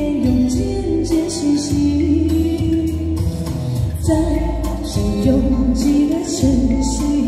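A woman singing into a microphone over a backing track with a deep bass, both amplified through a small mixer and loudspeaker.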